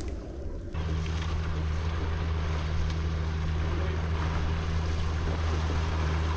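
Small outboard motor on a boat out on the river, a steady low drone that comes in abruptly under a second in, with wind noise on the microphone.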